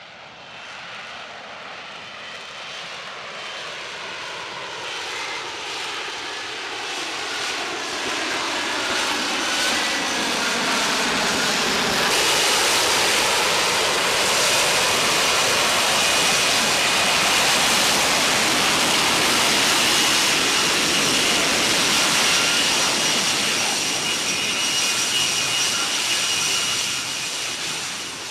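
Lockheed Martin F-35B's F135 jet engine and lift fan in hover: a steady jet roar with a high whine on top. It grows louder over the first dozen seconds as the jet comes nearer and lower, with sweeping tones, holds loud, then drops away at the end.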